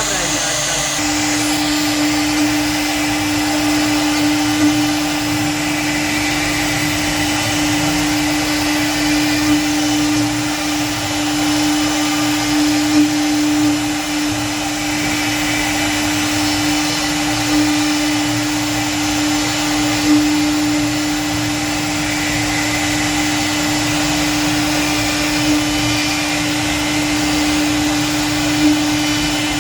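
CNC router spindle running at a constant speed as the bit carves wood: a steady motor whine at one unchanging pitch over cutting noise, with a few brief louder moments.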